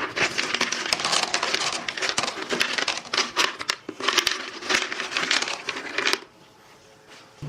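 Used ceramic filter rings clattering and crunching against each other as they are tipped by hand into an aquarium canister filter's media tray, a dense run of small clicks that stops about six seconds in.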